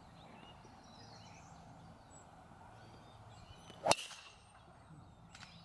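A driver striking a golf ball off the tee: one sharp crack about four seconds in, against a quiet, steady outdoor background.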